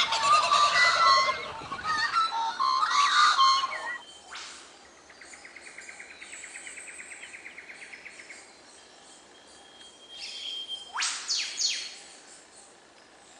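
Birds calling, with dense loud chirping in the first few seconds. This is followed by a quieter fast pulsing trill and, near the end, a few quick rising whistles.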